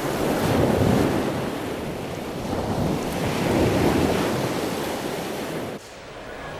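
Steady rushing roar of Niagara Falls, mixed with wind buffeting the microphone and swelling in gusts. The sound drops off abruptly near the end.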